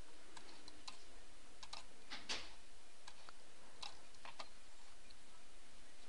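Faint, irregular clicks, about a dozen, scattered over a steady low hiss.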